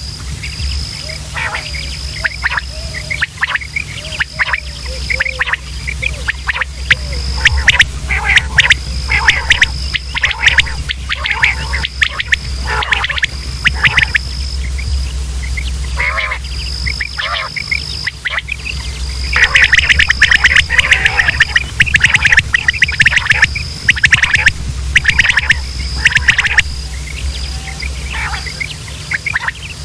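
Quail calling over and over: clusters of quick, sharp notes mixed with a repeating high, thin note. A steady low hum runs underneath.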